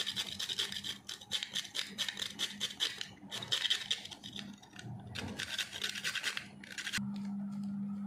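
Whole nutmeg seed being grated on a small metal hand grater: quick scraping strokes, several a second with short pauses, stopping about seven seconds in. A steady low hum follows.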